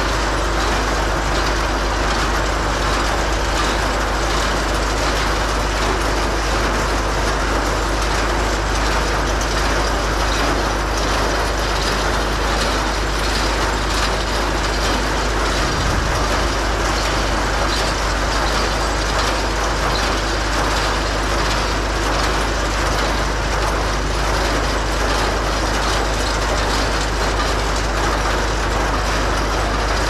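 An old hay bale elevator running steadily, its chain and slats clattering continuously as it carries small square bales up, with a tractor engine running under it.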